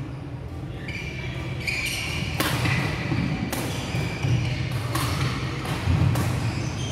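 Badminton rally in a large sports hall: sharp racket hits on the shuttlecock about once a second from a couple of seconds in, with short shoe squeaks on the court floor, over a steady low hum of the hall.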